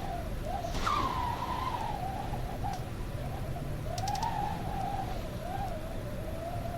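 Howling wind: a continuous whistling howl that wavers up and down in pitch, swelling with a gust about a second in, over a steady low rumble.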